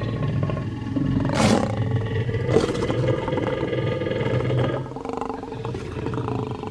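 Creature roar sound effect: a lion-like growling roar for a monster, with two short harsh bursts about one and a half and two and a half seconds in. It eases to a lower growl near the end.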